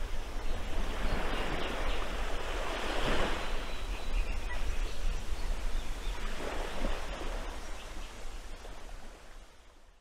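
Ocean waves washing, with wind rumbling on the microphone; the wash swells about three seconds in and again near seven seconds, then fades out.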